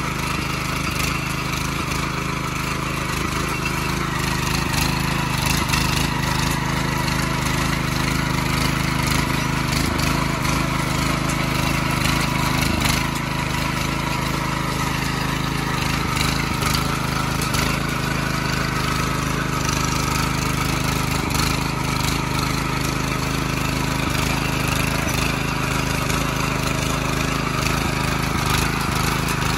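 Petrol walk-behind rotary tiller running steadily under load, its tines churning through greenhouse soil.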